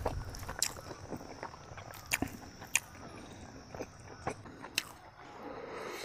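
Close-up eating by hand: scattered wet clicks and smacks of chewing, and of fingers working chicken and rice in curry. A faint steady high tone runs behind for most of it.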